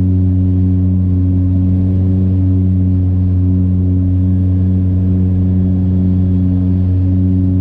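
Cabin sound of a Saab 340B's GE CT7-9B turboprops during landing: a loud, steady low propeller drone that does not change in pitch.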